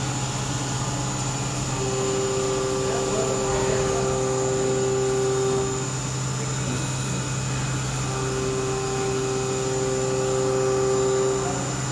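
Mori Seiki NLX2500Y CNC lathe running with a steady machine hum and a high whine, joined twice by a mid-pitched tone lasting about four seconds each time, as in repeated motor or spindle moves.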